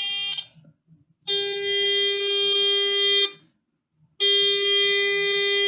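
Transistor alarm circuit on its constant-tone setting, giving a steady buzzy tone of one unchanging pitch. It cuts off about half a second in, sounds again for about two seconds, then starts once more about four seconds in.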